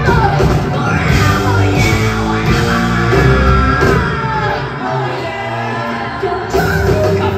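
Live rock band playing loud: electric guitars, bass and drums under sung and yelled vocals. The low end drops out for about a second and a half past the middle, then the full band comes back in.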